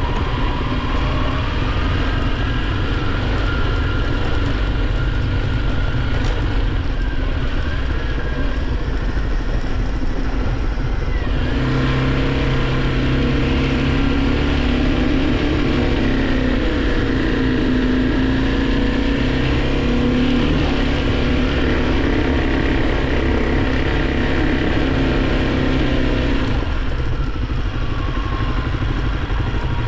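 Kawasaki KLX300 dirt bike's single-cylinder four-stroke engine running under way, its pitch rising and falling with the throttle. It pulls harder and louder for about fifteen seconds in the middle, on an uphill stretch of trail.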